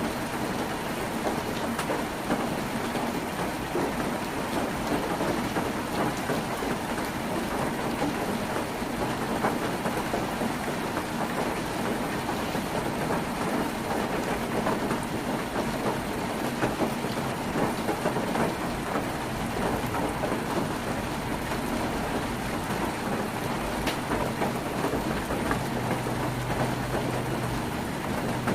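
Heavy rain falling on a tin roof: a dense, steady patter of drops on sheet metal. A low steady hum joins near the end.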